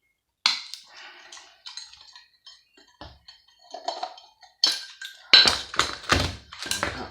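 Hand tools and loose metal parts clinking and clattering while a pump is taken apart for scrap, with a run of louder knocks and rattles about five seconds in.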